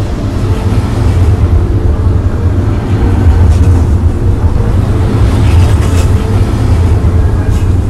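Added background ambience of a vehicle running: a steady low rumble, with a couple of faint clacks near the end.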